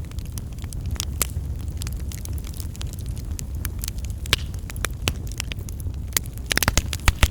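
Wood fire in a fireplace crackling, with scattered sharp pops over a steady low rumble of the flames and a quick cluster of pops near the end.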